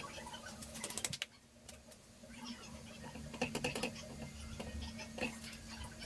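Scattered light clicks and taps of semolina cakes being picked up and turned over by hand on a flat griddle pan, in a few short clusters, over a faint steady hum.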